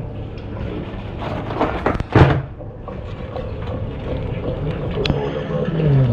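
Blue swimmer crabs clattering and scraping against a stainless steel sink as they are handled, with louder knocks about two seconds in and a sharp click near the end.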